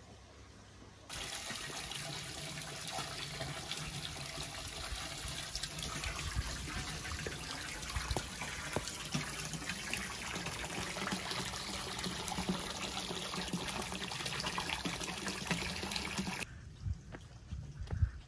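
Steady sound of water, starting about a second in and cutting off abruptly near the end, with scattered footsteps on wet stone steps.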